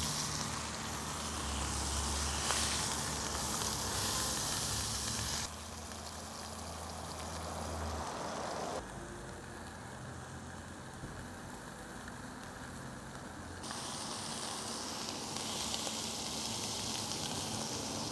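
Racks of lamb searing in a smoking-hot oiled cast iron skillet: a steady sizzle as the crust forms, its level dropping and rising abruptly a few times.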